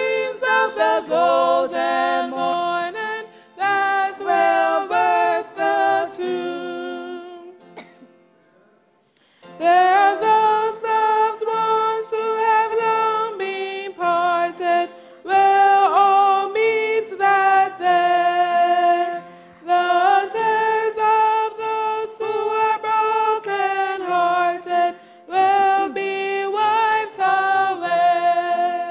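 Two women singing a sacred song together through microphones, unaccompanied, in sustained held notes, with a pause of about two seconds around eight seconds in before they carry on.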